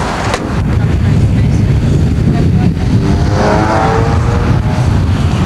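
Steady low rumble of wind buffeting a camcorder microphone, with a voice heard briefly about three seconds in.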